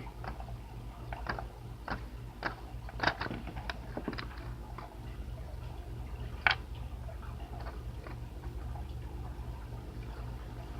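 Light, irregular plastic taps and clicks of a small toy figure kicking the back of a toy seat, over a steady low hum.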